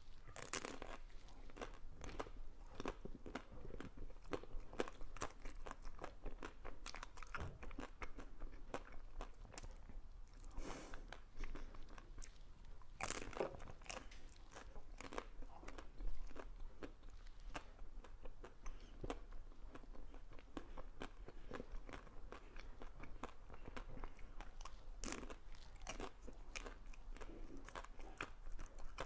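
Close-miked eating: ice cream being bitten and chewed, with many crisp crunches and a few louder bites.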